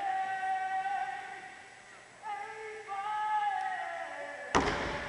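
Music with long held, voice-like notes: one note fades away over about two seconds, then a new held note comes in with a lower note beneath it. About four and a half seconds in, a sudden loud thump cuts in with louder noise behind it.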